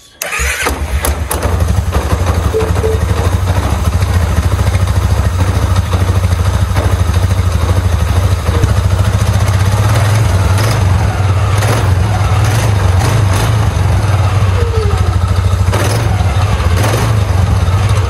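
2009 Polaris Sportsman 550 XP ATV's single-cylinder engine starting and running steadily, with a few faint clicks. It is on a test run after a new drive clutch spring was fitted to cure lurching at idle.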